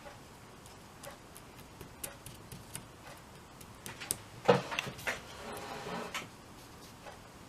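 Craft materials handled on a tabletop: scattered light taps and clicks, a sharp knock about four and a half seconds in, then about a second of rustling and scraping, as of cardstock being moved.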